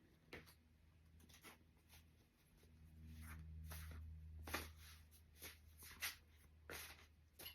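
Near silence with a faint low hum, broken by about nine faint, short scattered ticks and rustles of small handling noises.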